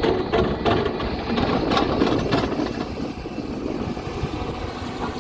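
Hyundai SMART 215L excavator's diesel engine running steadily, with several short knocks and clanks in the first two and a half seconds.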